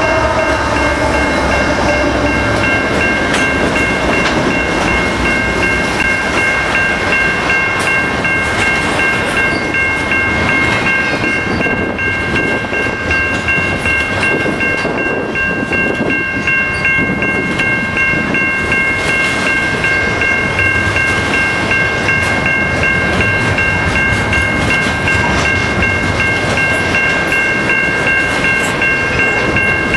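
Canadian National double-stack intermodal freight train rolling past close by: the engines of its locomotive consist are heard as it starts, then the container cars clatter steadily over the rails, with a steady high-pitched tone running throughout.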